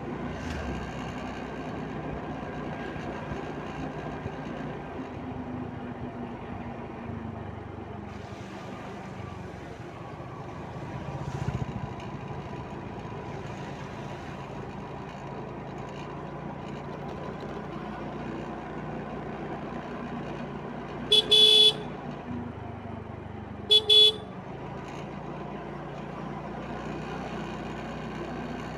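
Motor scooter running along at a steady pace, its engine a steady hum under wind and road noise. About two-thirds of the way through, the horn sounds twice in quick double beeps, a few seconds apart.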